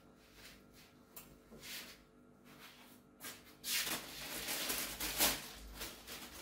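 Household objects being handled and moved: faint light knocks and rustles, then from about three and a half seconds in a louder, longer rustling that rises and falls.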